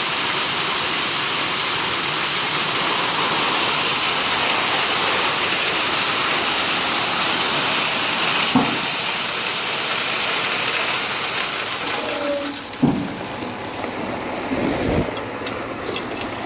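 Crushed stone pouring out of a dump truck bed as the load is spread, a steady rushing hiss that cuts off about twelve seconds in, followed by a few thumps.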